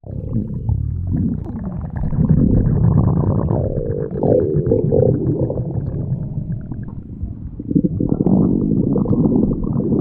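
Stomach growling: a continuous low rumble with wavering gurgles that rise and fall in pitch about four to five seconds in, easing off briefly and growing louder again near the end.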